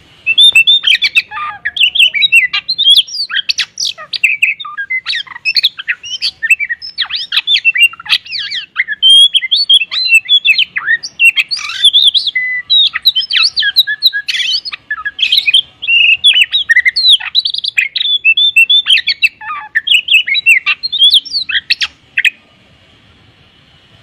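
Oriental magpie-robin (kacer) singing a long, rapid run of varied whistles, chatters and harsh notes, packed with phrases mimicked from other birds. It stops about two seconds before the end.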